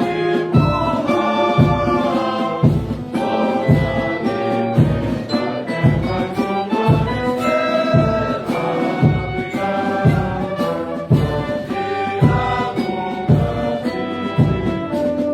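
Background music: sustained chords over a steady low beat, about one beat a second.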